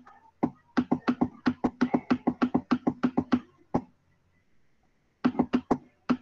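Rapid runs of sharp clicks from scrolling a document on a computer, about five or six a second: a long run, a lone click, then a short burst of four near the end.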